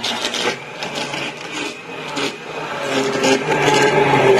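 Electric hand blender running in a steel pot of lemonade, its motor humming steadily while the liquid churns and splashes. It grows louder about three seconds in.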